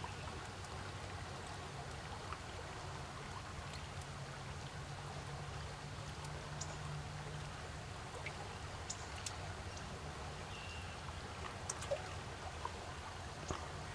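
Steady rush of water pouring out of a small dam's outlet tunnel into the pool below, with a low rumble under it and a few scattered faint ticks.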